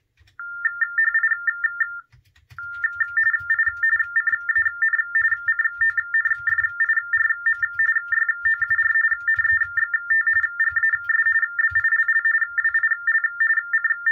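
Baudot TTY data tones from a computer, played through a gaming headset's earpiece into the acoustic coupler of an Ultratec Supercom TDD. A steady high tone flicks rapidly back and forth to a second, slightly higher tone as each character is sent, breaking off for about half a second around two seconds in. The flicker is typed text being transmitted, which the TDD decodes onto its display as it arrives.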